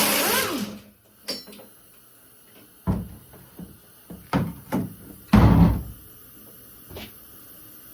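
A 3/8-inch air impact gun runs for under a second and stops as the bolt comes loose. Then come several separate metal clunks and knocks as the bolt, washers and bracket are handled; the loudest is about five and a half seconds in.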